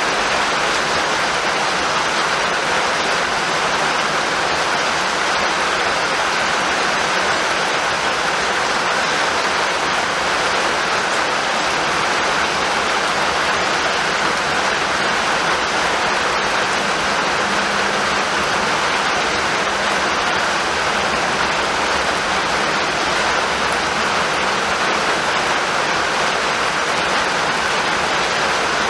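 Rain falling steadily, an even, unbroken hiss with no thunder.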